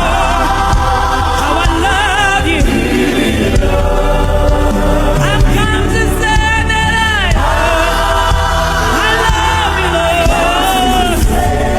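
Live gospel worship music: several voices singing with vibrato and a long melismatic run in the middle, over a steady low instrumental backing.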